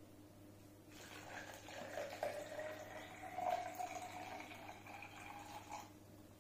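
Muddy water poured from a glass jug into a plastic-bottle filter packed with pebbles, sand and cotton: a steady pour that starts about a second in and stops shortly before the end, its pitch rising slightly as the bottle fills.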